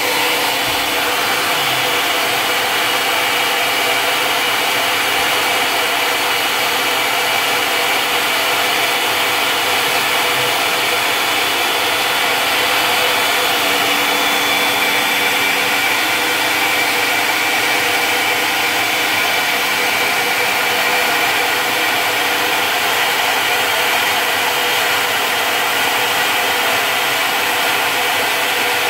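CNC Tensilkut III's spindle running at high speed, its end mill milling a wood composite tensile blank: a steady whine over the rough hiss of the cut. The shield is open, so the cutting is heard unmuffled.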